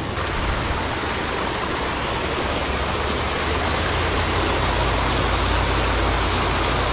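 Water rushing steadily over a creek spillway, an even hiss. A low rumble builds underneath from about four seconds in.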